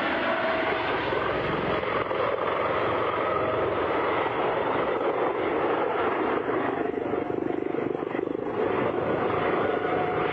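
Helicopter in flight overhead: a steady rush of rotor and engine noise with a faint steady whine, easing slightly about seven to eight seconds in.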